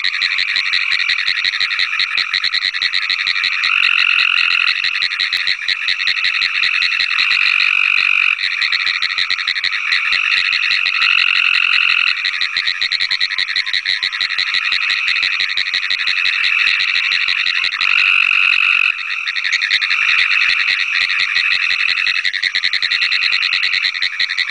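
Pine woods treefrogs and Cope's gray treefrogs calling together at close range. A continuous, very fast clicking chorus runs throughout, typical of pine woods treefrogs. Roughly one-second buzzy trills break in every few seconds, typical of Cope's gray treefrogs.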